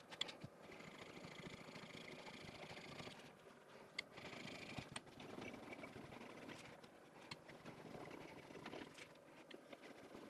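Faint, soft scraping of a steel chisel rubbed on a Shapton waterstone, in two stretches of strokes with small clicks and taps between them. The stones are being used to hone out a corner of the edge that the finer grit has not yet polished.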